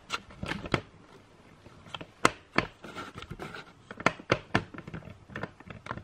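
Pen nib of a Huion WH1409 graphics tablet's P-80 pen tapping and sliding on the tablet's drawing surface: irregular light clicks and taps, with a short scratching stroke about three seconds in.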